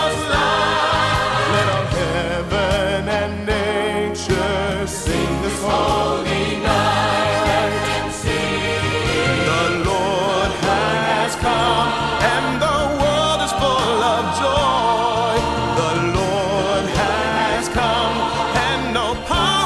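A choir and orchestra playing a choral Christmas anthem, the voices holding long notes with a strong vibrato over a moving bass line.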